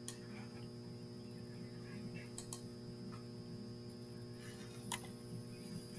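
Steady low electrical hum, with three sharp clicks of a computer mouse button spread about two and a half seconds apart: near the start, about halfway through and near the end.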